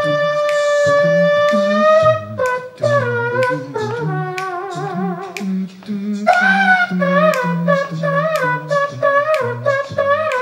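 Men's a cappella trio: one singer imitates a muted horn with his voice and a cupped hand over his mouth. He holds one long note for about two seconds, then plays a wavering melody, over a sung bass line and short mouth-percussion clicks.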